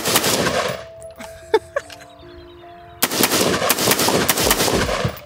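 Short-barrelled AR-15 fired in rapid semi-automatic strings: a quick string of shots ending just after the start, a couple of separate cracks, then a longer string of fast shots from about three seconds in until near the end. Background music plays underneath.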